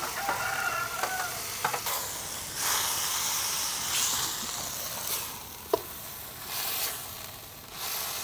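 Small fish frying in chili paste in a steel wok, sizzling in swells as a metal spatula stirs them, clinking and scraping against the wok. A rooster crows briefly near the start.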